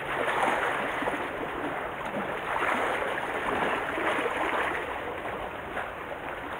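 Sea water washing and lapping against the concrete blocks of a breakwater: a steady rushing wash that swells and eases gently.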